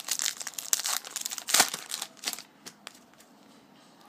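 Trading-card pack wrapper crinkling and tearing as the pack is opened, a run of crackly rustles for about the first two and a half seconds, loudest about a second and a half in.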